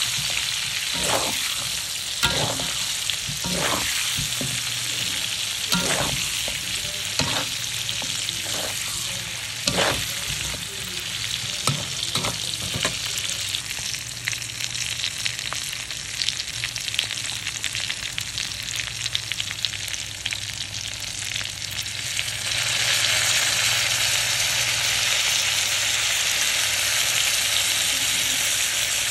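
Chicken pieces frying in hot oil in a pan with a steady sizzle. Through the first half a spatula stirs them, knocking and scraping against the pan about once a second. About three-quarters of the way through, the sizzle turns louder and brighter.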